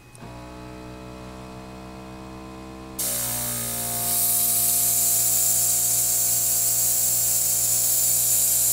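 A Sparmax Beetle airbrush compressor switches on with a click and runs with a steady hum. About three seconds in, the airbrush trigger is pressed and air hisses loudly out of the airbrush as it sprays, while the compressor's hum drops in pitch under the load.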